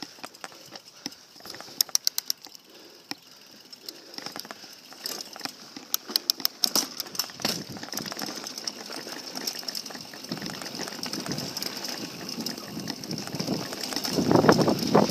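Mountain bike freewheel ticking in quick runs of clicks, then the tyres rolling over the dirt and gravel trail, the rolling noise growing louder toward the end.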